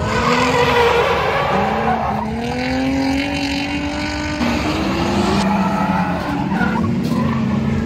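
Holden VY Commodore drift car sliding on a racetrack: the engine revs rise and fall while the tyres skid and squeal. The sound jumps abruptly twice, about two and four and a half seconds in, as one clip cuts to the next.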